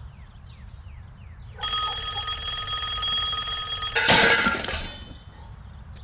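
A steady, bell-like ringing tone for about two and a half seconds, cut off by a loud crash with a brief shattering clatter, over a steady low rumble.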